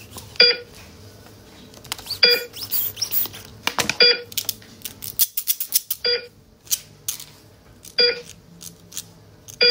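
Electronic heart-monitor beep repeating about every two seconds, six times, with clicks and small rattles of toy tools being handled between the beeps.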